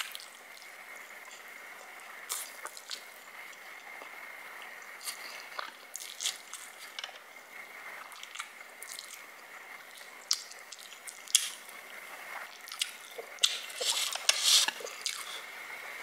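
A person eating dry, sauce-coated Samyang cheese buldak instant noodles: slurping strands in and chewing, with many short wet mouth clicks and smacks that grow busiest near the end.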